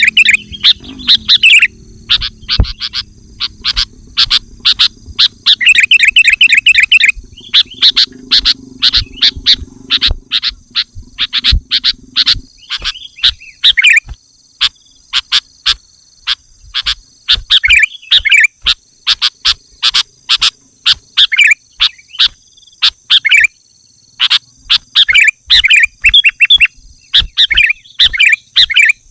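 Sooty-headed bulbul calling and singing: loud, sharp chirps and quick rattling phrases repeated over and over. A low steady drone runs under the first dozen seconds, then stops.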